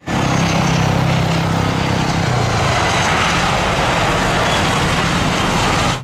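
Airbus A320-family jet airliner landing: steady engine and rushing air noise, with a low hum that fades about halfway through and a faint high whine falling slowly in pitch.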